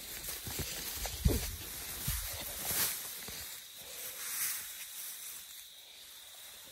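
Dry grass rustling and swishing as an elephant calf and a person walk through it, with a few low thumps, the loudest about a second and two seconds in.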